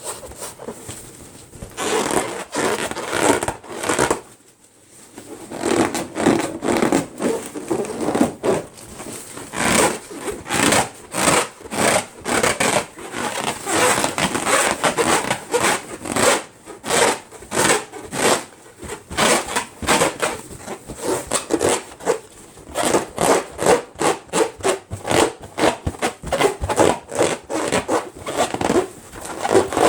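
Rubber balloons being rubbed and scraped by hand: a rapid, uneven run of short rubbing and scratching strokes, a few a second, with a brief pause about four seconds in.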